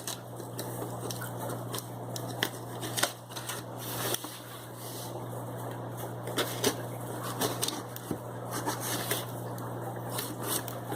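Irregular rustling, crackling and clicking of a shipping box and its packing being opened and handled, over a steady low hum.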